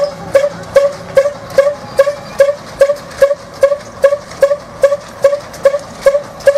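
Slow stationary engine running steadily, with a sharp pop about two and a half times a second, each pop carrying a short mid-pitched note.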